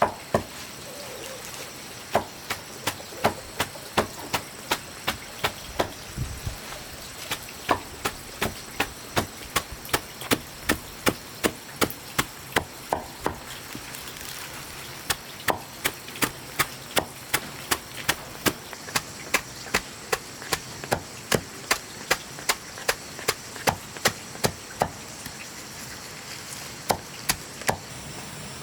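Steady chopping with a blade on wood, about two to three sharp strikes a second, broken by a few short pauses.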